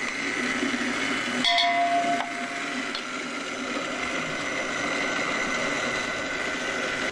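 Steady whining hum of a small electric motor running, with a hiss. A short metallic clink rings out about a second and a half in.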